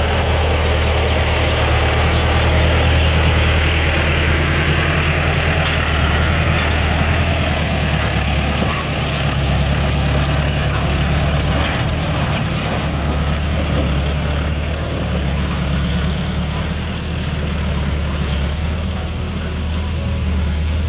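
Landini diesel tractor engine running steadily under load while towing a trailer heavy with oil palm fruit bunches, easing slightly as it pulls away.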